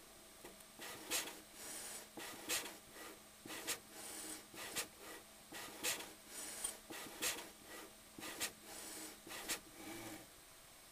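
Small polar CNC machine running a pattern: a series of short rasping, rubbing strokes about once a second, over a faint steady hum that stops near the end.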